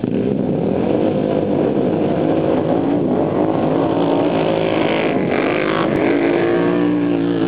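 A pack of racing ATVs' engines revving hard together as the field launches off the start line, a dense mass of overlapping engine notes that comes in suddenly. About five seconds in, the note of the nearest quads climbs and shifts as they pass, and one engine stands out near the end.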